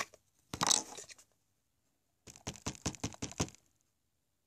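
Crinkly rustling from handled craft supplies: a short rustle about half a second in, then a quick run of about eight crackling clicks lasting a little over a second.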